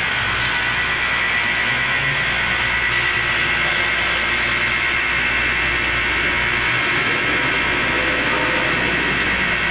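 Nine-motor straight-line glass edging machine running, its grinding and polishing spindle motors giving a steady mechanical whir with a constant high whine over a low hum.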